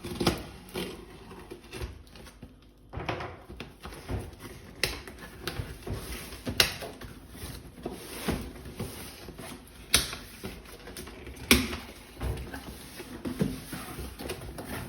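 Cardboard box being cut open and handled: irregular scraping and rustling, with a few sharp knocks scattered through.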